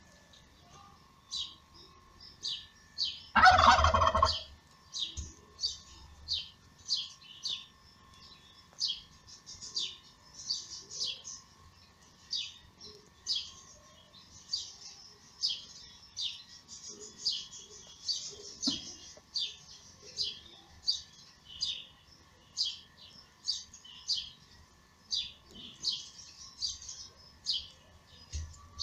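Small birds chirping repeatedly, short high chirps about one to two a second, with one loud animal call about three and a half seconds in.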